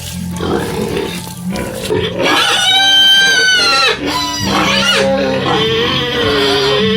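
Pigs squealing, the loudest a drawn-out high squeal from about two to four seconds in, over background music with steady low notes.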